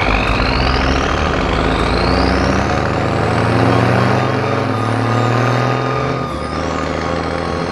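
Cartoon truck engine sound effect, running steadily with a rising whine twice as it speeds up, then falling whines about six seconds in as it eases off.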